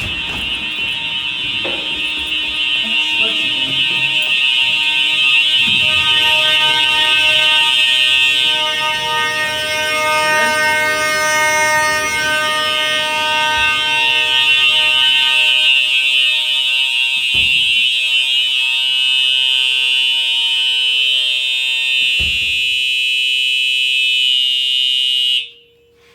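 Simplex fire alarm horns sounding one steady, unbroken blare during a system test. The horns cut off suddenly near the end. Two brief knocks come through in the second half.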